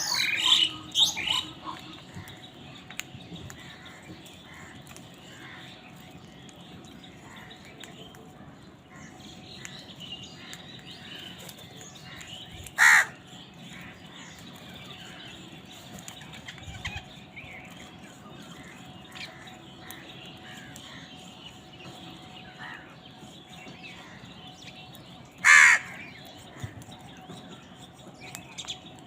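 Crows cawing: a flurry of calls right at the start, then two loud single caws, about 13 and 25 seconds in, over faint steady twittering of other birds.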